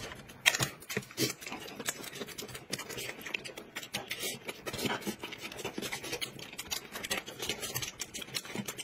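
Eating sounds: chewing and lip smacks, with many small irregular clicks and rustles.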